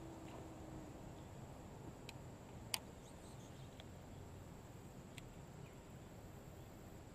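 Faint steady background noise with a few light clicks and one sharp click nearly three seconds in, as a fishing reel is engaged and line reeled in after a cast.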